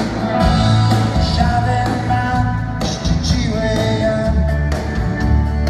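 Live rock band playing: acoustic and electric guitars, bass and drums with a steady beat, and a lead vocal.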